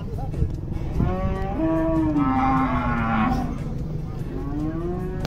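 Cattle mooing: two long calls, the first about a second in lasting around two seconds and sinking slightly in pitch, the second starting near the end and rising.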